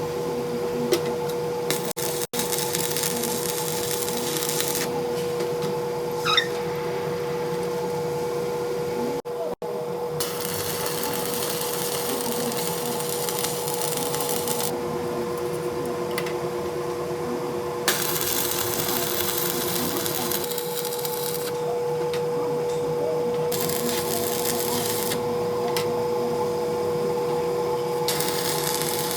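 Workshop machine running with a steady hum, with a hissy cutting noise that comes and goes in stretches several seconds long.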